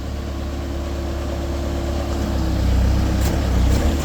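Bobcat A300 skid steer's diesel engine running steadily while the attachment tilt hydraulics are worked; the engine note grows louder and heavier about two-thirds of the way in as the hydraulics take load.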